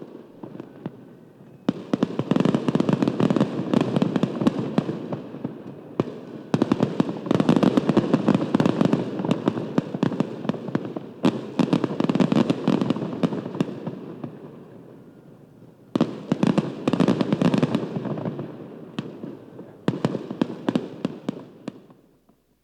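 Distant fireworks display: sudden onsets that break into long rolls of dense crackling pops, each dying away slowly. It comes in four waves, starting about 2, 6, 16 and 20 seconds in, and fades out at the very end.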